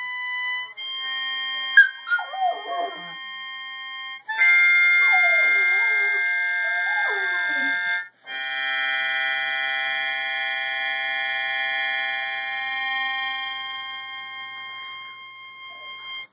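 Harmonica playing long held chords, with short breaks, while a Plott hound howls along in a few howls that slide down in pitch, about two seconds in and again from about four to eight seconds in. The second half is the harmonica alone, fading near the end.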